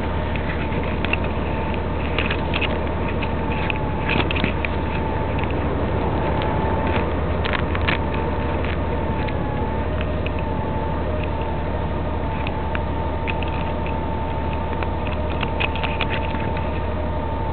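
Honda Gold Wing motorcycle under way: steady wind and road noise with a faint steady whine. Scattered clicks and knocks from the camera being handled, more of them in the first half.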